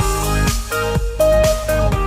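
Background music: an upbeat electronic track with a steady beat and plucked, guitar-like notes.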